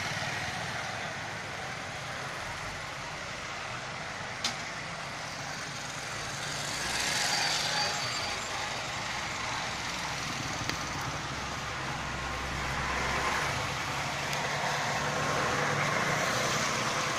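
Road traffic: motorcycles and other vehicles passing, a steady wash of engine and tyre noise that swells as vehicles go by, with a sharp click a few seconds in.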